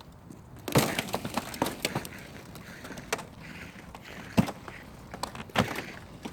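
Ice cracking and splintering in a string of sharp snaps and crunches, with the loudest cracks about a second in, at about four and a half seconds and at about five and a half seconds.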